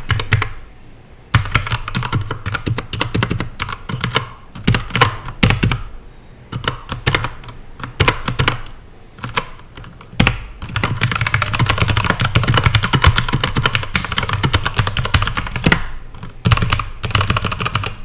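Typing on a Keychron K8 mechanical keyboard with brown switches in a plastic case: rapid runs of keystroke clicks, with short pauses about a second in and again near six and nine seconds.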